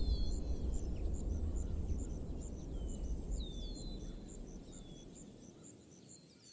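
Dry-country outdoor ambience with a low wind rumble, insects chirping in a steady high pulse, and birds giving several short whistles that fall in pitch. It all fades out toward the end.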